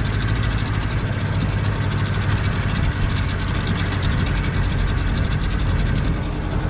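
Small boat's outboard engine running steadily while the boat cruises along the river, with a fast, even beat.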